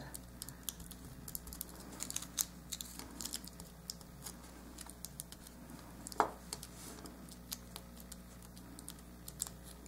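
Crumpled aluminum foil dabbed against soft polymer clay to texture it: faint, irregular light ticks and crinkles, with one slightly louder knock about six seconds in. A low steady hum lies underneath.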